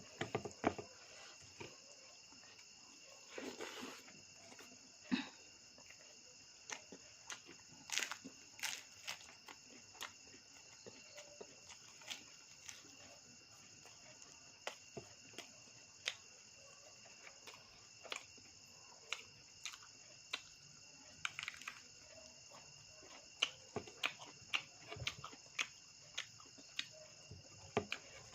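Close-up eating sounds: irregular wet clicks and smacks of chewing and handling food. Behind them runs a steady high-pitched chirring of crickets.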